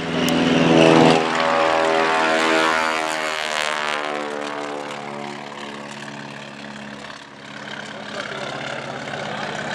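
Max Holste MH-1521 Broussard's Pratt & Whitney R-985 radial engine and propeller passing low overhead. It is loudest about a second in, then its pitch falls and the sound fades as the plane flies away.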